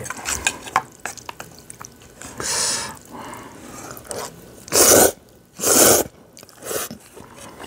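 Slurping of instant jjajangmyeon noodles several times, with chewing between, the loudest slurps about five and six seconds in. Before them, chopsticks make small clicks and scrapes in a metal pot while stirring.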